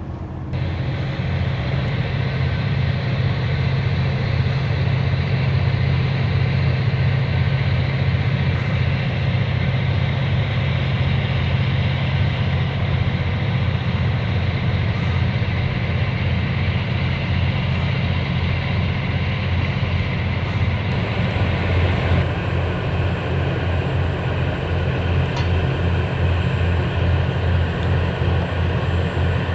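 Diesel engine of a small log-boom tug running steadily, a low even throb.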